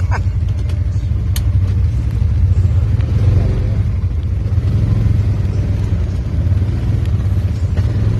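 Off-road vehicle engines running, a steady low rumble.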